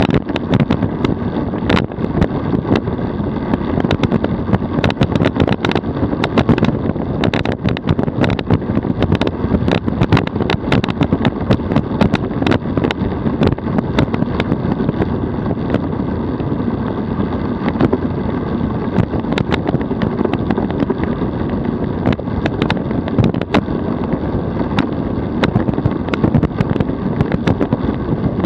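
DF velomobile riding along a paved road at a steady 42 km/h. Its tyres make a continuous rumble on the road, carried through the shell. Many small rattles and knocks run through it, along with some wind on the microphone.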